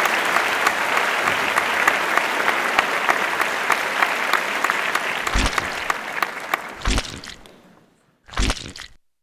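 Audience applauding, fading out about three quarters of the way through, then a brief low sound near the end.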